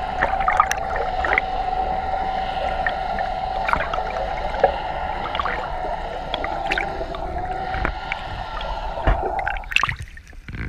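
Underwater sound picked up by a GoPro in its waterproof housing: a steady whine with overtones and scattered clicks and knocks. The whine cuts off abruptly near the end, as the camera is lifted through churning water.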